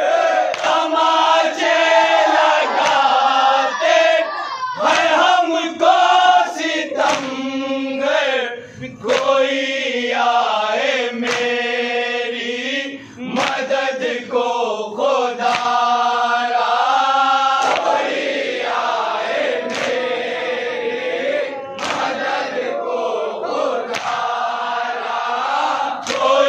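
A group of men chanting a noha, a Shia mourning lament, together in a rising and falling melody, with a sharp knock now and then.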